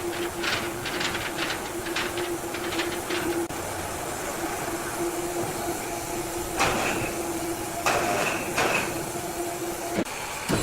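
Sawmill machinery running with a steady hum, rattling clicks in the first few seconds and a few short squeals later on.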